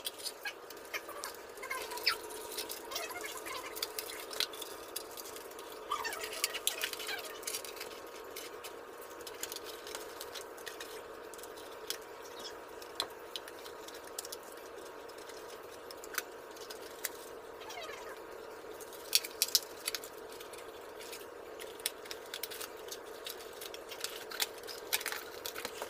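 3D puzzle pieces being handled and pressed together by hand: scattered light clicks, taps and rustles, with a faint steady hum underneath.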